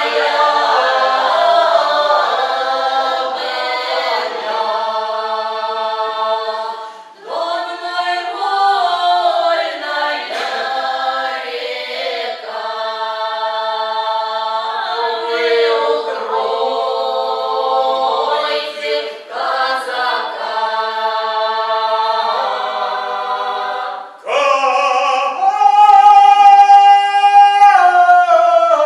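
Russian folk ensemble of men's and women's voices singing a Cossack-style song in harmony, in phrases with short breaks, louder near the end.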